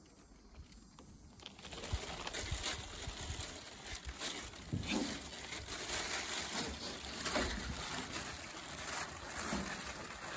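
Water splashing and dripping as a cast net is hauled hand over hand into a small boat by its rope, starting about a second and a half in, with irregular soft knocks.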